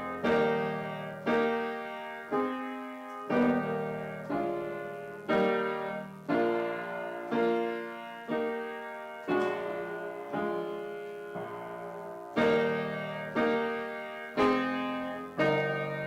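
Upright piano played slowly and softly, a sustained chord struck about once a second and left to ring and fade.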